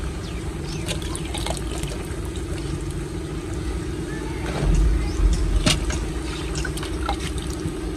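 A steady low drone runs throughout, with scattered sharp clinks and knocks and a heavier low thump about five seconds in.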